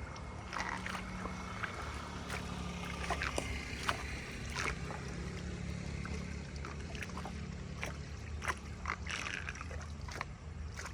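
Flood water rushing as it drains, with a steady low rumble and many short splashes and gurgles scattered throughout.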